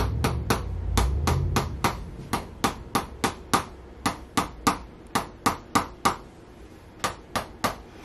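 Handheld chiropractic adjusting instrument tapping against a patient's back in a steady rhythm of about three sharp clicks a second, growing somewhat fainter toward the end.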